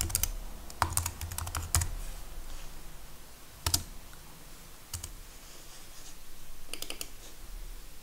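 Computer keyboard typing: a quick run of keystrokes in the first two seconds, then a few single clicks spread out, with a short cluster near the end.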